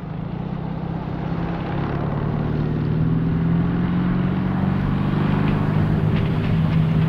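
A 1922 Brill-built Chicago streetcar running toward the listener: a steady low hum of its motors and gearing that grows louder, with a few faint clicks near the end.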